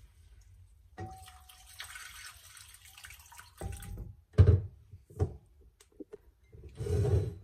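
Cooled broth poured slowly from a mug into a pan of fried flour-and-paprika roux, splashing and gurgling in several separate pours, the loudest about halfway through and near the end. A brief ringing clink about a second in.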